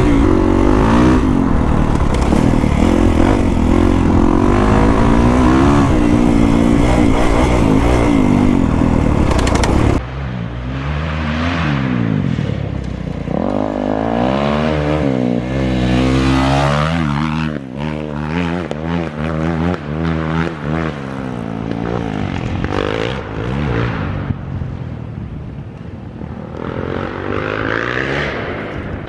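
Kawasaki KX450X single-cylinder four-stroke dirt bike with an FMF 4.1 RCT exhaust revving hard on the trail, heard from on the bike with wind noise. About ten seconds in it switches to the bike heard from outside, its pitch rising and falling as it revs and passes by several times.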